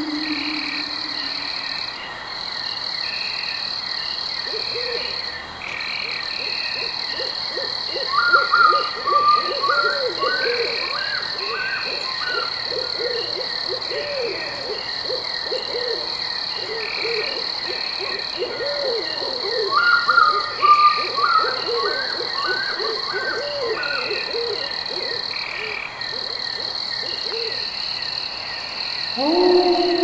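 Nature sound bed of overlapping animal calls over a steady high-pitched drone. Repeated low wavering croaking calls run through most of it, with chirping runs about eight seconds in and again about twenty seconds in. A louder falling call comes near the end.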